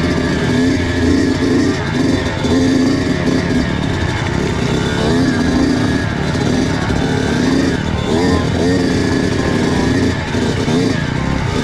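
Kawasaki KX85 single-cylinder two-stroke dirt bike engine running hard, its pitch rising and falling over and over as the throttle is blipped and rolled off.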